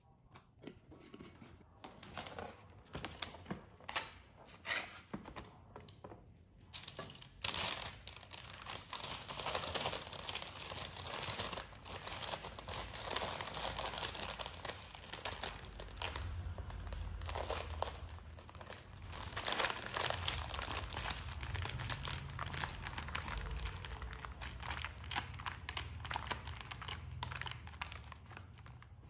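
Parchment paper crinkling and rustling as it is lifted and used to roll up a sheet of sponge cake. The crackles are sparse at first and become almost continuous after several seconds.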